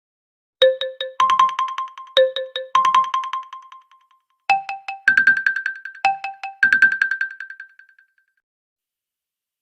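OnePlus OxygenOS 14 ringtone: a short melody of struck, ringing notes in two-note figures, two phrases and then two more pitched higher, the last note dying away a little after eight seconds in.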